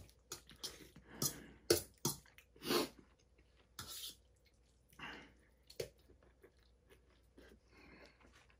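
A fork scraping and clinking against a stainless steel bowl as pasta is scooped up, with a person chewing a full mouthful. The scrapes come quickly in the first three seconds and more sparsely after.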